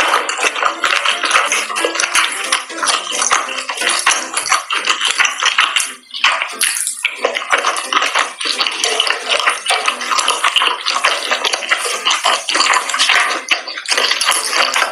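Close-miked wet chewing and mouth sounds of someone eating spicy sauced seafood, with sticky squelches and clicks as the saucy pieces are chewed and pulled apart, over background music.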